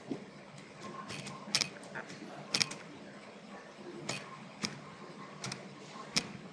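Sharp clicks of a computer mouse and keyboard, about a dozen spaced irregularly, some in quick pairs like double-clicks.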